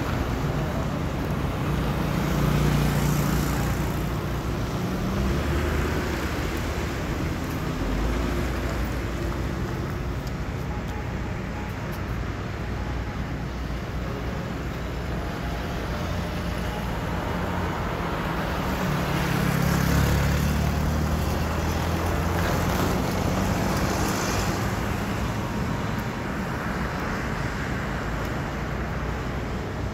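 Road traffic: motor vehicles passing on the road, their engine and tyre noise swelling and fading, loudest about 3 seconds in and again about 20 seconds in.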